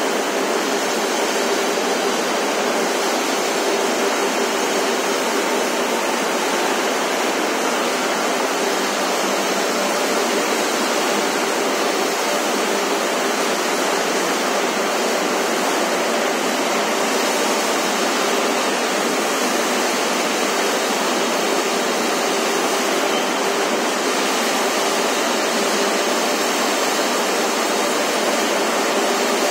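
Steady rushing noise of waste-sorting plant machinery running, with a faint steady hum underneath.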